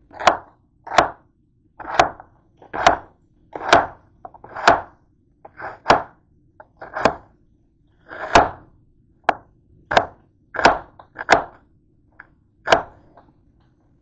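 Kitchen knife slicing through an onion onto a cutting board: about fifteen separate chops, roughly one a second, stopping shortly before the end.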